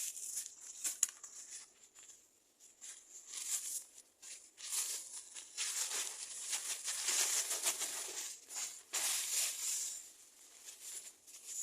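Irregular rustling and crinkling handling noise with a few sharp clicks in the first second. It grows busier and louder through the middle, then thins out near the end.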